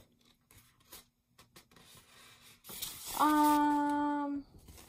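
A person's voice holds one drawn-out note at a steady pitch for about a second, a wordless hum, after a short breath. Before it there are faint small clicks of handling.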